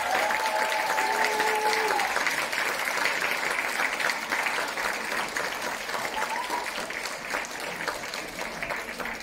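Applause from a hall full of people, a dense patter of many hands clapping that gradually dies away. A couple of voices call out briefly in the first two seconds.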